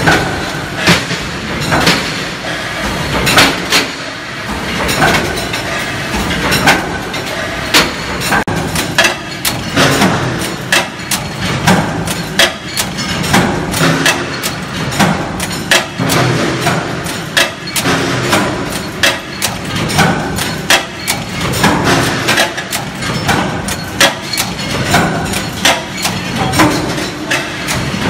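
Four-station bolt former running, its forming strokes giving a steady beat of heavy metallic strikes about once a second, with lighter clicks between, over continuous machine noise.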